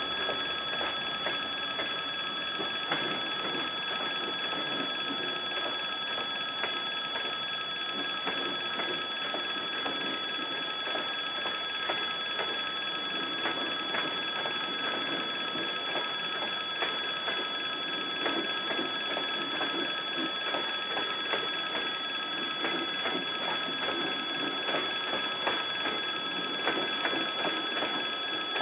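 Level-crossing warning bell ringing on without a break while a passenger train's coaches roll past, wheels clattering over the rails.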